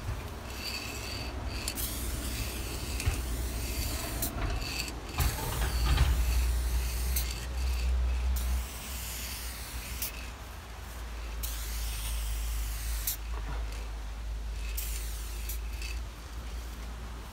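Aerosol spray-paint can hissing in a run of bursts, each a second or two long with short breaks between, as paint strokes are laid down. A steady low rumble runs underneath.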